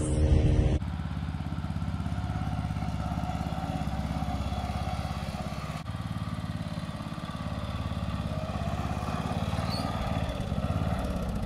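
White riding lawn mower's engine running steadily, starting about a second in.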